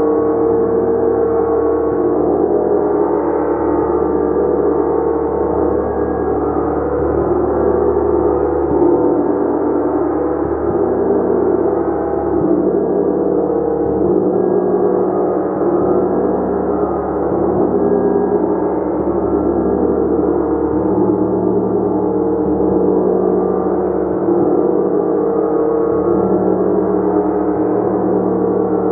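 Gong played continuously in a sustained, steady wash of many overlapping ringing tones, strongest in the low-middle range, without distinct separate strikes.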